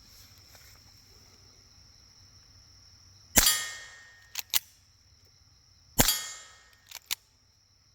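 Two shots from a .22 handgun firing Aguila Colibri low-velocity rounds, about two and a half seconds apart, each a sharp crack with a short tail, followed about a second later by a pair of sharp clicks. Crickets chirp steadily in the background.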